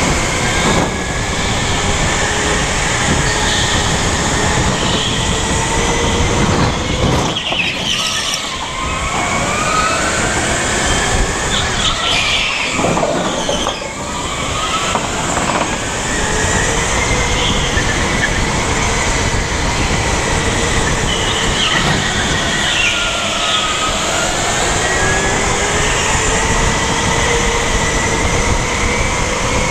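Go-kart's motor whining under drive, its pitch climbing and then dipping several times as the kart slows for corners, over steady road and chassis noise.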